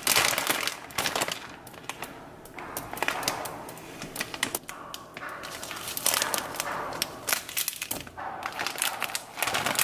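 Plastic Samyang instant-ramen packet crinkling and rustling as it is handled, the noodle block and sauce sachets taken out, with many sharp crackles.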